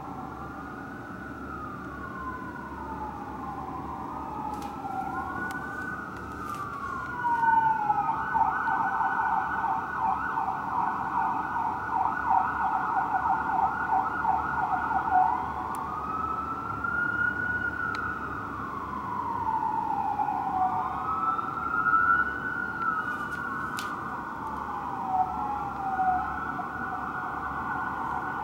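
Fire engine and ladder truck sirens, two sirens wailing out of step, their slow rising and falling sweeps overlapping. About seven seconds in, the sound switches to a fast yelp for some eight seconds, then goes back to the slow wail.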